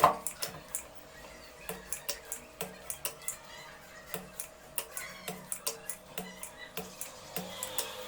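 Irregular light clicks and taps of tools working on an amplifier circuit board while its amplifier ICs are being removed, about two a second, with one sharp click at the very start.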